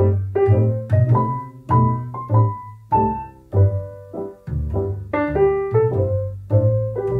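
Background piano music: a gentle tune of struck notes, about two a second, over low bass notes.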